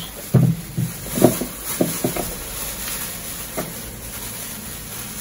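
A series of soft knocks as tomatoes and onions are dropped into a plastic bowl, along with handling of a plastic carrier bag. The knocks come mostly in the first two seconds, with one more about three and a half seconds in.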